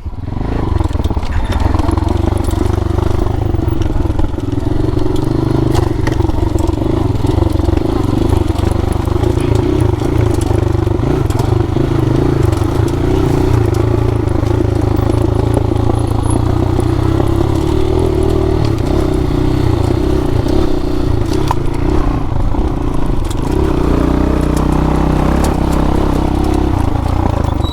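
Dirt bike engine running steadily while under way on a trail, its note shifting a little near the end.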